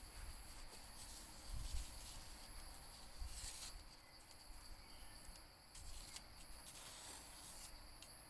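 Faint, steady, high-pitched insect chirring, with soft scuffs and light thumps now and then from a wooden stick and a kitten's paws on bare wooden floorboards.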